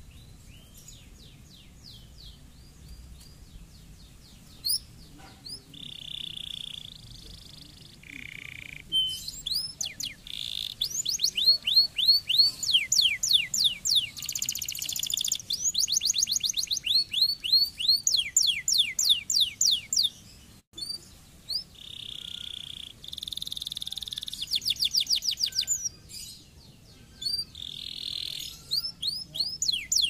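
Domestic canary singing: fast trills of rapidly repeated falling notes, alternating with short held tones. The song is faint at first and becomes loud about nine seconds in, with a brief break about two-thirds of the way through.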